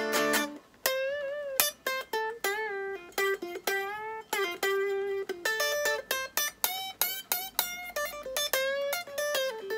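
Electric guitar playing a single-note lead phrase in D minor from the minor-pentatonic box at the tenth fret, with vibrato on held notes and a string bend near the middle.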